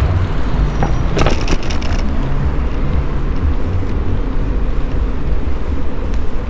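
Wind and rolling noise on a microphone carried on a moving bicycle: a steady low rumble, with a short burst of clicks and rattles about a second in.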